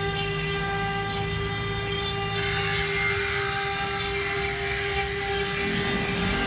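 CNC stone engraving machine running, its spindle giving a steady whine of several fixed tones; a rougher hiss of cutting joins in about two and a half seconds in.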